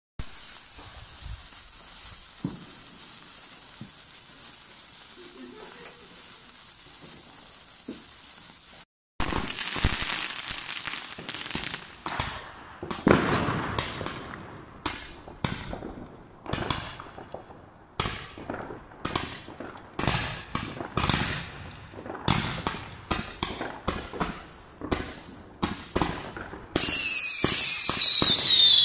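A sparkler fizzing with a steady hiss. After a cut about nine seconds in, fireworks go off in quick succession, each a sharp bang or crackle that dies away. Near the end several high whistles fall in pitch.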